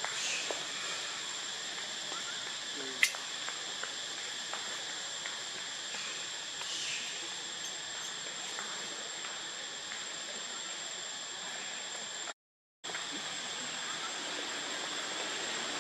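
Steady forest ambience: a constant high insect whine over an even hiss, with one sharp click about three seconds in. The sound cuts out for a moment near the end.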